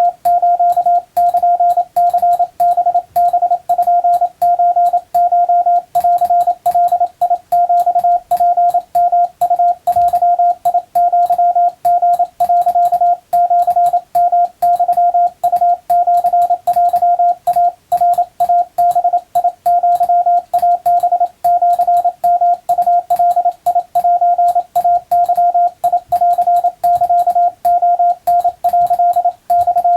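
Morse code (CW) practice signal: a single steady tone keyed on and off in quick dots and dashes, sending continuously with only short gaps between characters.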